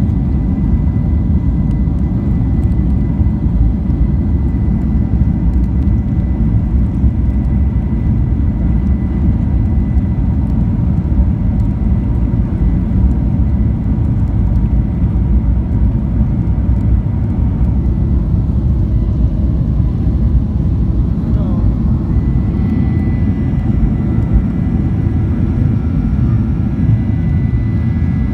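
Boeing 737-800's CFM56 jet engines heard from inside the passenger cabin: a loud, steady low rumble with a thin high whine. About two-thirds of the way in, further whining tones join it.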